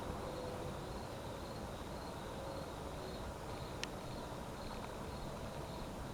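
Cricket chirping in an even rhythm, about two chirps a second, over a low steady background rumble, with one sharp click a little before four seconds in.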